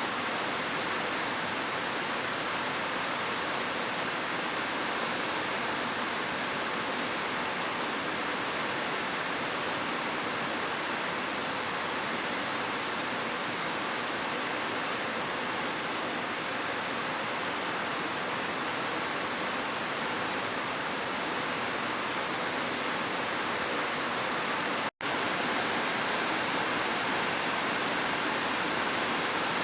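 Heavy rain falling as a steady, even hiss. It cuts out for an instant about 25 seconds in, then carries on unchanged.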